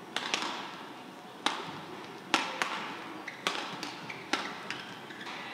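Badminton rally: rackets striking the shuttlecock in turn, sharp cracks about a second apart with a short echo after each. Softer taps fall between the hits.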